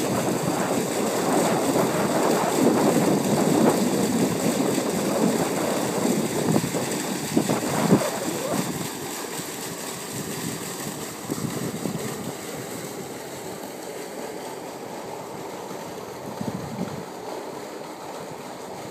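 Wind buffeting the microphone, a rough rumbling noise that is stronger at first and eases off about halfway through.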